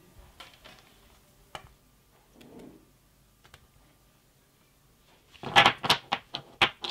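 Hands working at a bench with a multimeter and battery cells: a few faint clicks and a knock, a soft rustle, then near the end a quick run of about eight sharp clicks and clacks, the loudest part.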